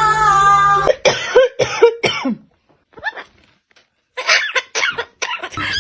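A parrot makes a series of short cough-like sounds in two clusters, about a second in and again near the end, the way pet parrots imitate human coughing. Music with singing plays for the first second.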